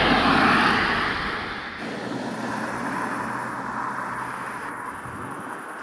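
Outdoor road noise as a bike race passes: a loud rush of sound that drops abruptly about two seconds in to a quieter, steady background with a low hum.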